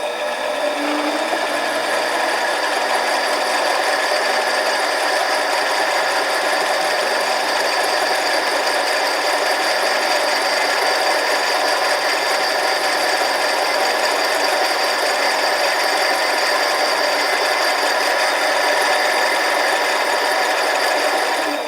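Harbor Freight 7x10 mini lathe running steadily: its motor and drive gears give a continuous whine made of several steady tones.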